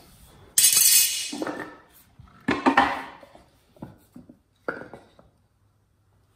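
Tools and small wood pieces clattering as they are handled and set down on a concrete floor: two loud clatters, about half a second and two and a half seconds in, then three lighter knocks.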